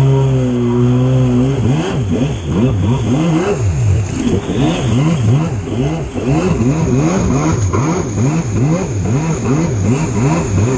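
Jet ski engine running at speed. Its pitch holds steady for about the first second and a half, then swings up and down about twice a second as the craft bounces over the chop and wake beside the ship, with the rush of water spray throughout.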